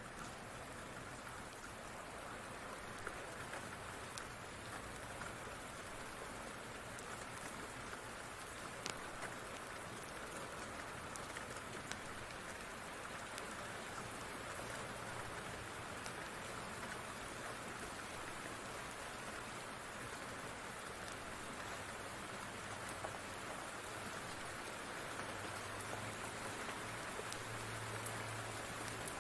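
Steady rain falling, with a few sharp pops from a crackling wood fire scattered through it.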